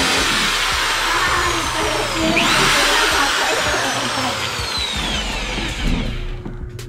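Corded electric drill boring through a wooden board. The motor spins back up about two and a half seconds in, its pitch then slowly sinking as the bit bites. It stops shortly before the end.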